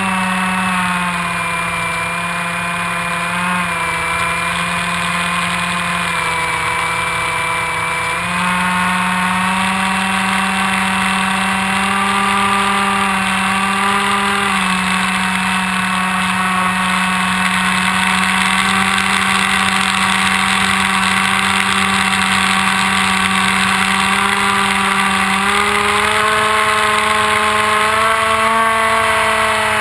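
Onboard sound of an AXN Floater Jet RC plane's electric motor and propeller in flight, running steadily under a hiss of rushing air. Its pitch dips and rises again several times as the throttle changes.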